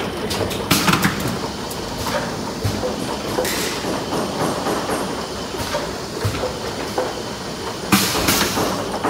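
Automatic bottle filling and heat sealing line running: a steady mechanical clatter of the conveyor and rotary star wheel, with plastic bottles knocking against each other and the guide rails. Brief hissing bursts come now and then, the loudest near the end.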